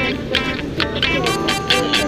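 Music with plucked guitar-like notes, over a low steady rumble.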